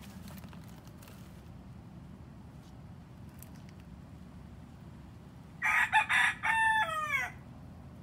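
A rooster crows once, starting about two-thirds of the way in and lasting under two seconds, its final notes falling in pitch.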